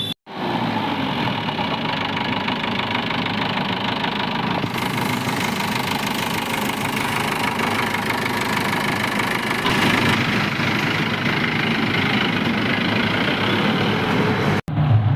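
A diesel Jeep engine running steadily at idle.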